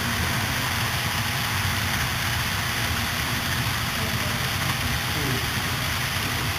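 HO scale model freight trains rolling past on the layout's track: a steady rolling noise of wheels on rail and motors running, with a low rumble.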